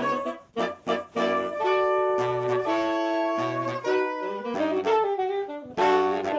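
Saxophone quartet playing sustained chords over a low bass line, with a brief break in the music about half a second in.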